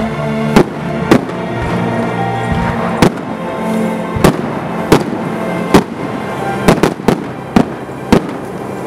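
Aerial firework shells bursting in a string of about eleven sharp bangs, several coming close together in the second half, over music playing throughout.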